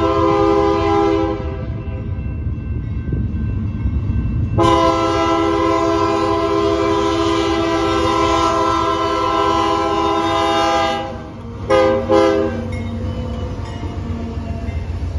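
Multi-chime horn of a BNSF diesel locomotive sounding the grade-crossing signal. One blast ends about a second in, a long blast runs from about four and a half seconds to eleven, and a short blast follows. A low, steady rumble of the approaching train runs underneath.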